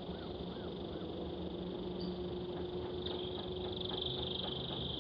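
Outdoor ambience of insects giving a steady high-pitched drone, which grows a little stronger about three seconds in, over a low steady hum, with a few faint short chirps in the first second.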